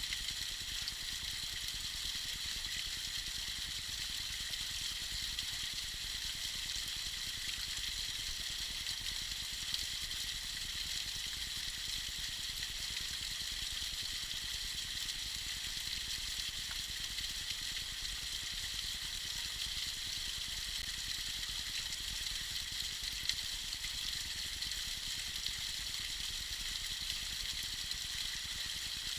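Tiny waterfall: water falling and splashing steadily, heard as an even, high hiss that does not change.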